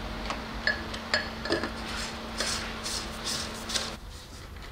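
Metal tools or parts being handled: about six light metallic clinks and taps, some with a short ring, over a steady low hum that stops about four seconds in.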